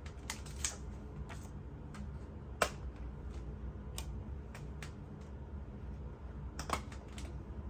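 Scattered light plastic clicks and taps, one sharper about two and a half seconds in and a quick cluster near the end: discs being popped off the hubs of a 4K steelbook case.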